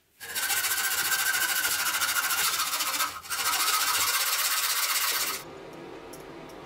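Hacksaw cutting through a thin brass tube clamped in a vise: a steady, loud rasping that breaks off briefly about three seconds in, then cuts off suddenly about five seconds in, leaving a quieter steady background sound.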